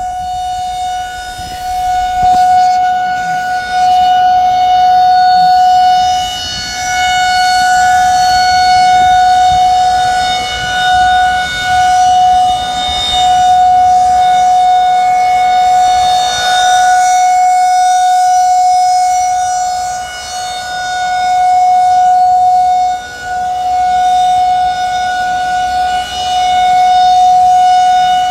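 Federal Signal 2001-130 rotating outdoor warning siren sounding the steady Alert signal of a monthly test. One steady, loud tone that swells and fades every few seconds as the rotating horn sweeps toward and away.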